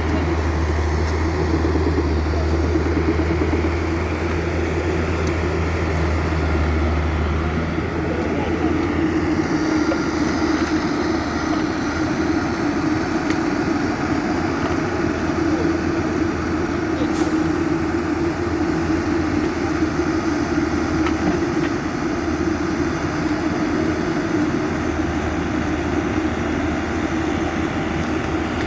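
Diesel engine of heavy machinery running steadily. A deep low hum under it drops away about seven seconds in, while the engine's steady mid-pitched drone carries on.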